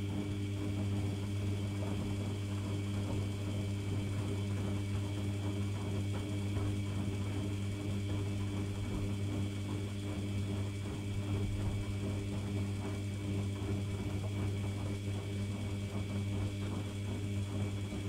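Currys Essentials washing machine running mid-cycle: a steady low electrical hum with water sloshing and gurgling in the drum, which cuts off abruptly at the end.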